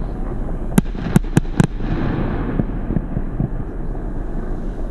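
Consumer F2 fireworks battery (Wolff Cool Beauty) firing: four sharp bangs in quick succession about a second in, over continuous crackling and rumble from the shots.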